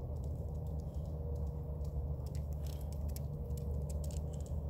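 Steady low industrial roar from a metal-casting plant's equipment, with a thin tone above it that comes and goes; the uploader puts this engine-like roar and its screaming harmonics down to failing equipment.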